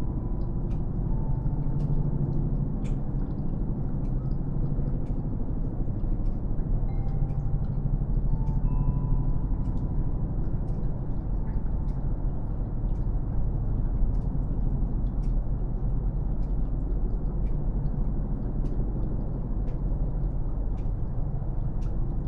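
Snowmelt dripping in irregular sharp ticks over a steady low rumble. Faint wind-chime tones sound briefly about a second in and again around eight to ten seconds in.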